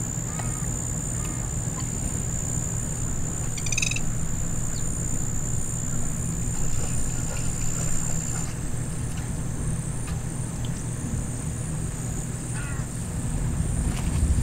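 Outdoor wetland ambience: a steady high-pitched insect-like drone over a constant low rumble, with a few short animal or bird calls, one of them about four seconds in.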